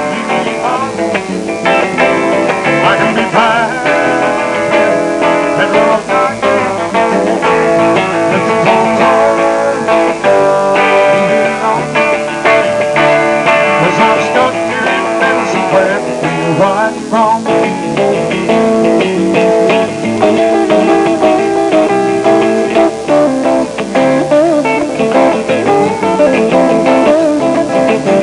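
Live band playing with acoustic and electric guitars, some guitar notes bending in pitch.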